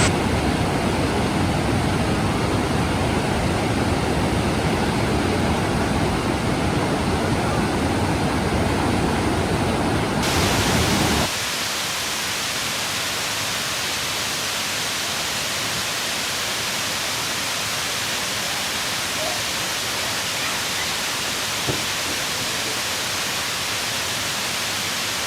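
Waterfall rushing: a deep, steady roar for the first eleven seconds or so, then a sudden change to a brighter, thinner hiss of falling water.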